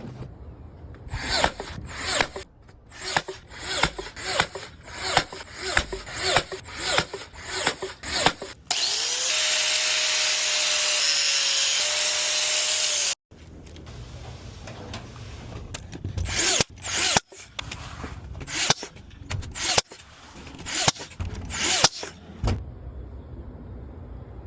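Hand-tool work in rhythmic rasping strokes, about two a second, then a power drill running steadily for about four seconds before stopping abruptly. More irregular rasping strokes and knocks follow.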